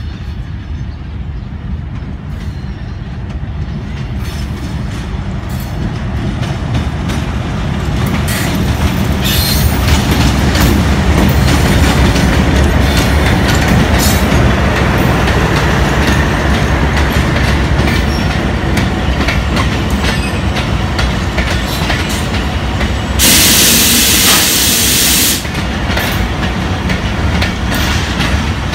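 Pakistan Express passenger train, diesel-hauled, rolling past close by. The locomotive's rumble grows louder over the first ten seconds, then the coaches' wheels clatter over the rail joints. Near the end a loud, even hiss lasts about two seconds and cuts off suddenly.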